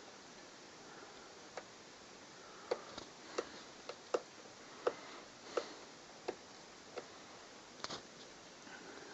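Light, sharp clicks of hand tools and parts working on a 2009 MacBook being taken apart, about a dozen in all, irregular at first and then about one every 0.7 seconds.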